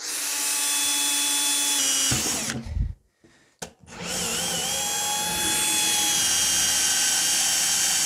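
Electric drill boring holes through the top of a plastic drum: one run of under three seconds that drops in pitch as it stops, then after a short pause a second, longer run starting about four seconds in.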